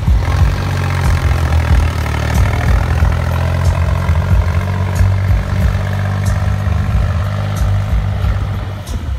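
Tractor diesel engine running steadily under load as it pulls a loaded trolley, a low even drone that eases a little near the end.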